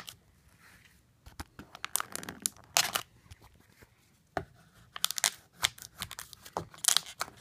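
Matte black vinyl wrap film being rubbed and worked down onto a car door handle: short, irregular rasping and crackling strokes with quiet gaps between them.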